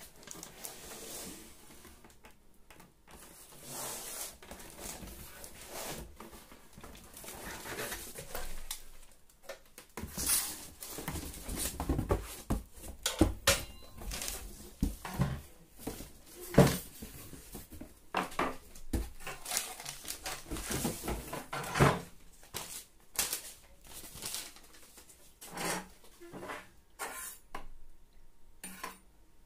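Unboxing handling noise: cardboard box and packing paper rustling while a metal rocket stove and its wire fuel shelf clink and knock, with a few sharper knocks in the middle.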